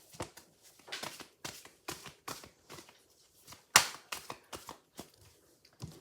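A deck of oracle cards being shuffled and handled: a run of irregular quick card flicks and snaps, with one sharper snap about two-thirds of the way through.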